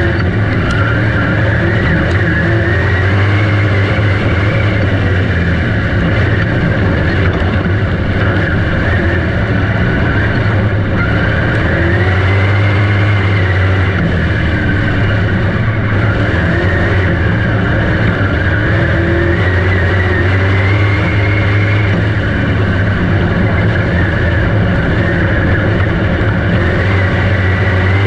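Dirt-track race car engines running at speed on the track, the pitch climbing and falling again and again as the throttle is opened and eased off, over a steady low drone.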